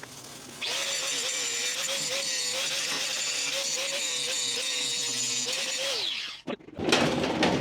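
Gas-shielded wire-feed (MIG) welder laying a bead on steel: a steady, crackling, sizzling arc starts about half a second in and stops abruptly about six seconds in. A few sharp clanks of metal follow near the end.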